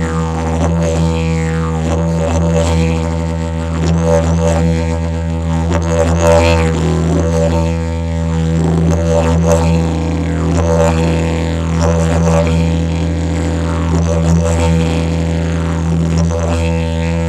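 Aspen didgeridoo in E (E2) playing a continuous low drone, its upper overtones shifting and pulsing in a rhythm of roughly one swell a second.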